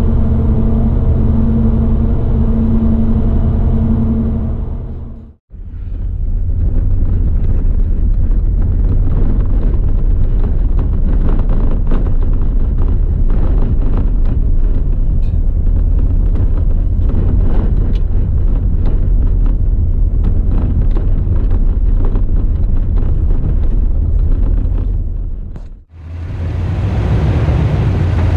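Vehicle driving noise heard from inside: a steady engine and tyre hum on paved road, then a rougher rumble with constant small clicks and rattles of tyres on a dirt and gravel road. The sound drops out briefly twice, at edits between driving segments.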